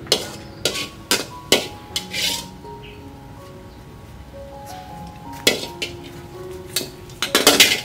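Metal spatula clinking and scraping against a stainless steel wok and a plate as cooked chicken is scooped out: a series of sharp clinks, with a quick flurry of them near the end. Soft background music plays underneath.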